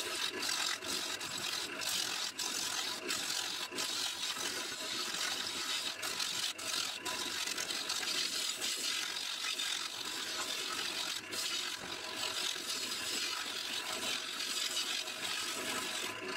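A gouge cutting a wet elm blank spinning on a wood lathe: a steady hissing cut with the lathe's hum beneath it.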